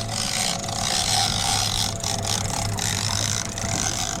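Yamaha 250 outboard idling in neutral with a steady low hum, under an even hiss of wind and water.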